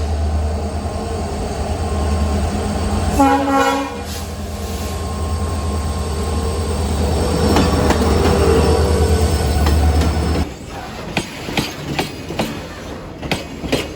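A train passing close by on the track, with a heavy low rumble and a short horn blast about three seconds in. The rumble cuts off suddenly about ten and a half seconds in, leaving irregular sharp clacks of wheels over the rails.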